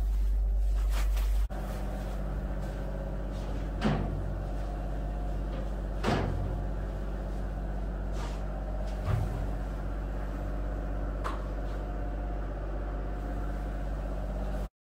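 A steady low machine drone with a constant hum, broken by four brief knocks, stopping abruptly near the end.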